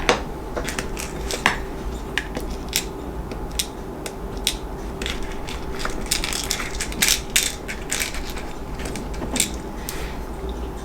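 Irregular small clicks and rattles of small screws, a screwdriver and plastic model-kit parts being handled, over a steady low hum.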